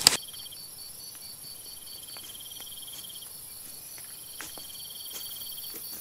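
Insects chirping: a high pulsing chirp of about four or five pulses a second over high steady trills that start and stop, with scattered faint clicks.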